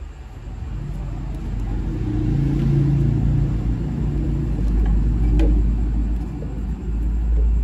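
Angle bar bending machine running with a low, steady rumble; a hum swells over it about two to three seconds in.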